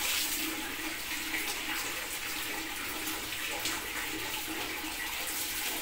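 Water running steadily, like a tap pouring into a container, with a faint steady hum underneath.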